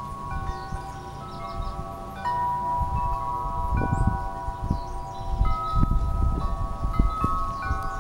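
Wind chimes ringing, with many overlapping tones struck at irregular moments and left to ring on. An uneven low rumble runs underneath and grows stronger after a couple of seconds.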